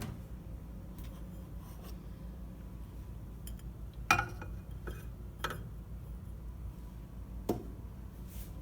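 A few light clinks and knocks of a dish being handled, the loudest about four seconds in, over a low steady hum.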